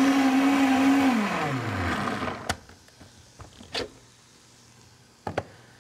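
Countertop blender running steadily as it purées hummus, switched off about a second in, its motor winding down over the next second. A few light clicks and knocks follow.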